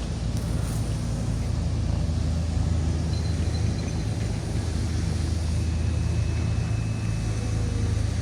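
Steady low drone of a running engine, like a vehicle heard from inside.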